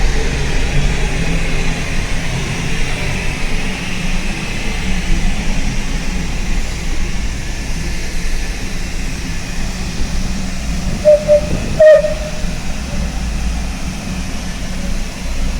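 Vulcan Foundry class 12 E locomotive running with a steady low rumble and hiss. About eleven seconds in come three short, sharp pitched blips close together, the loudest sounds in the stretch.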